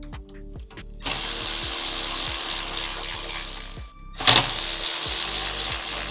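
Power tool running in two long stretches, with a sharp loud knock between them, during scooter disassembly. Background music with steady tones plays underneath.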